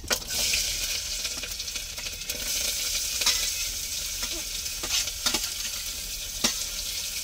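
Chopped onion and garlic sizzling in hot oil with cumin as they go into the pan, with a spoon stirring them and clicking against the pan four or five times.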